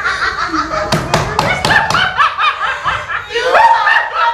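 Staged laughter from actors: a rapid, loud run of short "ha" syllables, with a few sharp knocks about a second in.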